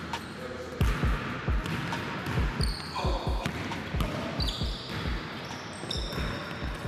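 A basketball being dribbled on a court: repeated bounces, about three a second, starting about a second in. Short high squeaks are heard in the middle.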